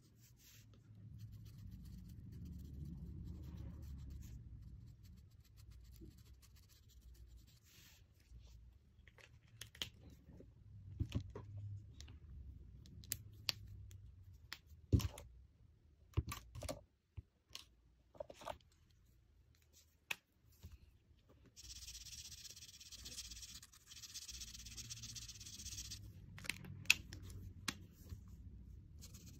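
Faint scratching of a felt-tip marker across paper, with scattered clicks and knocks from the pen and page being handled, and a few seconds of steady scratchy hiss from continuous strokes in the last third.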